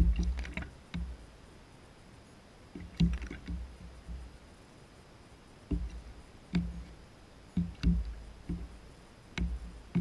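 Juvenile gull drinking from a plastic bowl of water: about ten short knocks and splashes, irregularly spaced, as its beak dips in and strikes the plastic and the water sloshes.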